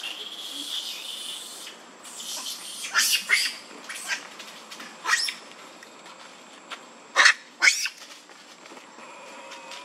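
Baby macaque crying: a thin high whine at first, then a string of short, sharp squeals, the loudest two close together near the end.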